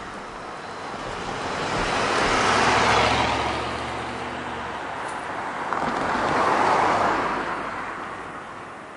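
Two road vehicles passing close by one after the other, each a swell of tyre and engine noise that rises and fades, the first about three seconds in and the second about seven seconds in.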